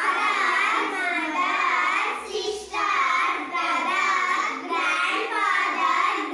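A group of schoolchildren answering together in unison, a sing-song chant in about three long phrases with brief breaks between them.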